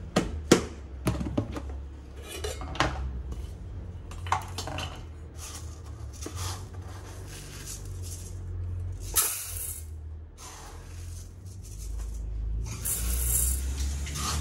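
Plastic lid latches on a rice storage bin snapping open with sharp clicks, then uncooked rice scooped with a plastic cup and poured into a pot, the dry grains scraping and hissing, with the loudest pours about nine and thirteen seconds in.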